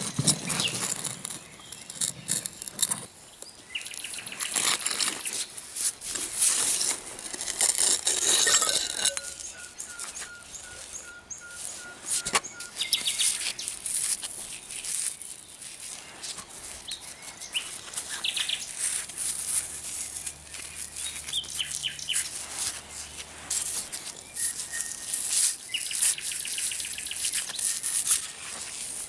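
A nightingale sings with rapid high trills and runs of repeated whistled notes, one of them held for a few seconds about a third of the way in. Under it, scrapes and rustles come from a gloved hand digging through sandy soil, busiest in the first third.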